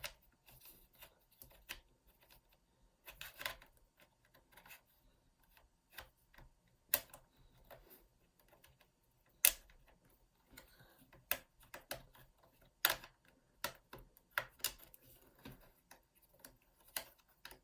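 Plastic snap-fit clips of an MSI GP66 Leopard laptop's bottom cover clicking loose as a guitar pick is pried along the seam. The sharp clicks come at irregular intervals, several of them loud, with fainter ticks and scratching of plastic on plastic between them.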